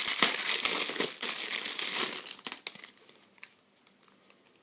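Plastic wrapping on a Yu-Gi-Oh card tin crinkling and tearing as it is pulled off. The crinkling stops about two and a half seconds in, leaving a few faint clicks.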